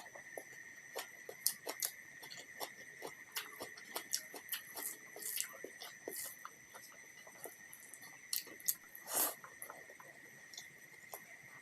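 Close-miked eating sounds: irregular chewing and small mouth clicks and smacks, with a louder longer smack about nine seconds in. A steady faint high whine runs underneath.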